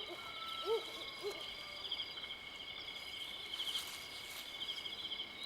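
Night-time insect chorus trilling steadily, with four short low calls in the first second and a half, each rising and falling in pitch.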